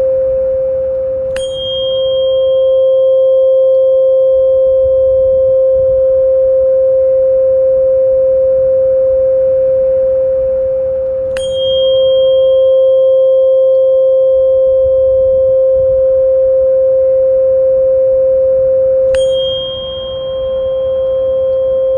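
A steady pure tone held without a break, as used in tinnitus frequency therapy, with a bell-like chime struck three times over it. Each strike rings on with a high note that fades slowly.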